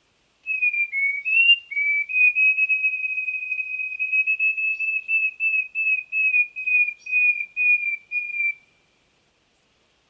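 Tepui wren (Microcerculus ustulatus) singing: a long series of pure, flute-like whistled notes. A few wavering notes open the song, then it settles into evenly spaced notes at about two a second on nearly one pitch, drifting slightly lower before it stops near the end.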